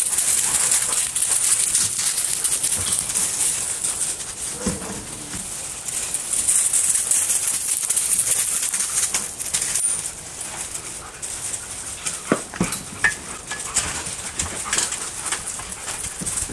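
A pack of dogs' paws scuffing and crunching on gravel as they mill about, with claws clicking and scrabbling on a wooden platform and a few sharp knocks a little after the middle.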